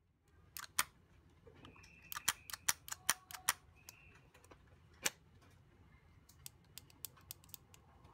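Sharp plastic clicks from a timer-locking cigarette case: the lid snapping shut, then a quick run of clicks and a few scattered smaller ones as the case is handled and the release button is pressed while the lid stays locked. Two faint short tones sound among the clicks.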